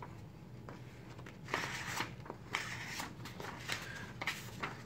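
A folding knife's blade drawn into a sheet of paper in a series of short, irregular strokes starting about a second and a half in, the paper rasping and crinkling as the edge catches. The knife is not very sharp.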